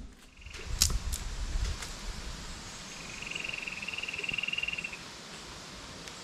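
A couple of sharp clicks of wooden sticks being handled and set into the ground about a second in. Then an animal's high, rapid trill lasting about two seconds.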